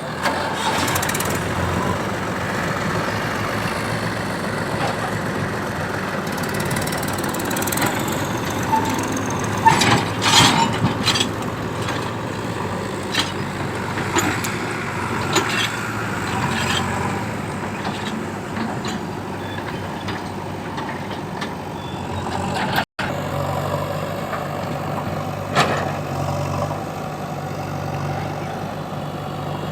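Heavy diesel machinery running steadily, with several sharp knocks and clanks around ten seconds in and once more later.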